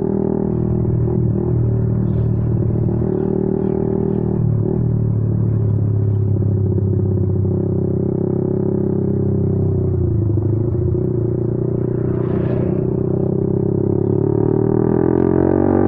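Honda CB150R motorcycle's single-cylinder engine running through a WRX Trioval K2 aftermarket exhaust on the move, a deep, bassy note. The pitch dips briefly twice, then rises near the end as the engine revs up.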